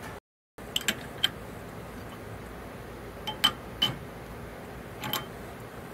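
Light metal clinks of a steel T-handle socket wrench being fitted onto and turned on the T-bolts of a longtail mud motor's shaft housing: a few short sharp clicks, a pair about a second in, a cluster around three and a half seconds, and another near the end.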